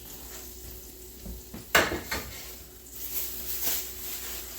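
A sharp clatter of kitchenware being moved about two seconds in, followed by a few lighter clinks. Under it, a faint sizzle of floured chicken breast frying in oil in a cast iron skillet.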